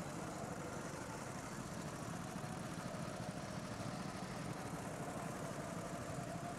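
Small go-kart engines running steadily as karts circle the track.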